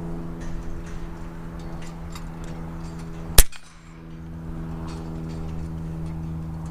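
A single air rifle shot about three and a half seconds in, firing a .22 slug, over a steady low hum.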